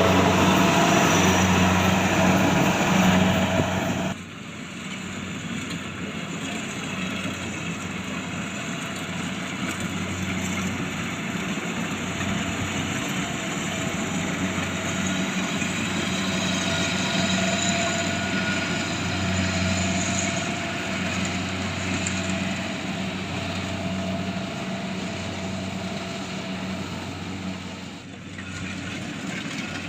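Rice harvesting machine's engine running steadily with a low hum. The sound is louder and noisier for the first four seconds, then drops suddenly to a quieter steady run, with a brief dip near the end.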